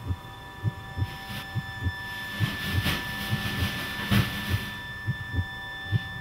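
Suspense film soundtrack: a fast, heartbeat-like pulse of low thuds over a sustained drone of steady high tones, with a hissing swell that rises and fades in the middle.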